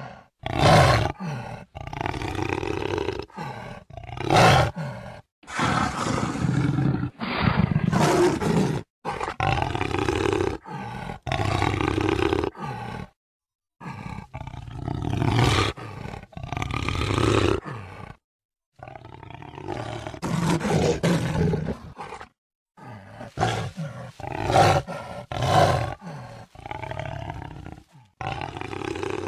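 Jaguar roaring, call after call, as a string of separate recordings spliced together with abrupt cuts and a few brief gaps of silence between them.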